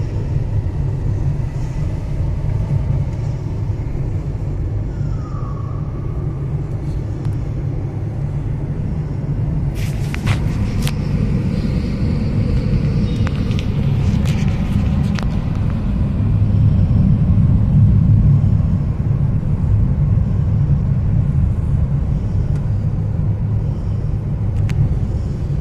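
Steady low road and engine rumble heard inside the cabin of a Maruti Ertiga driving through a road tunnel, growing a little louder about two-thirds of the way through. A few sharp clicks come near the middle.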